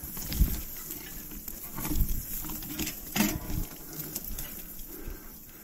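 Heavy, laboured breathing and grunts from an exhausted cyclist pushing a bike uphill, coming irregularly about a second or so apart, with some scraping and knocking.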